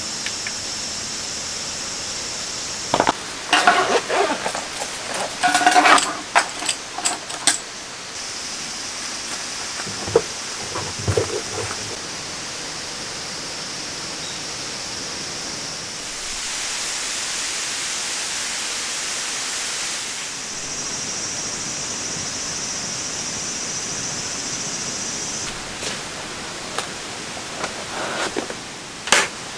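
A steady rushing hiss, broken by three bursts of clicks, knocks and clatter as hard plastic camping-kit cases and their fittings are handled.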